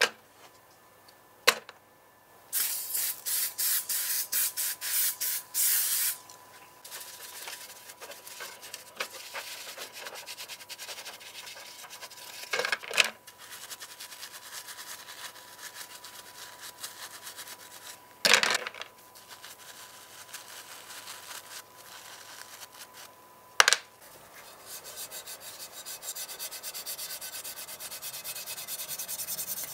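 Brisk brushing of plastic and diecast model-car parts with a stiff brush in soapy water: fast scrubbing strokes early on, then a lighter steady scrub broken by three sharp knocks. Near the end comes a denser rubbing as a pad works over the bare metal body shell.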